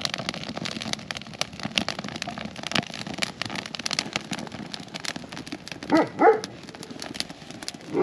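A dog barks twice in quick succession about six seconds in, over a steady crackle of many sharp pops from a wood fire.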